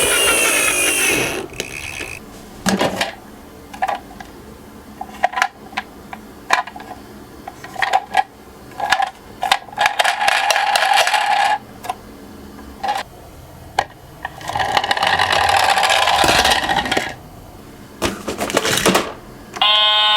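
Die-cast toy minicars rolling and clattering down a slope: a run of light clicks, knocks and short rolling rattles. A siren sound cuts off just over a second in.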